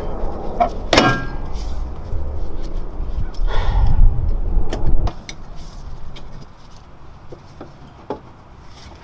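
Knocks and clicks of hand work on metal parts in a car's wheel well, with one sharp knock about a second in. A low rumble runs under the first half and drops away at about five seconds.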